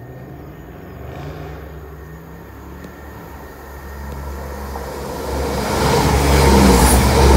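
Greater Anglia diesel multiple unit approaching along the platform, its engine drone and wheels on the rails growing steadily louder. It is loudest near the end as the train comes alongside.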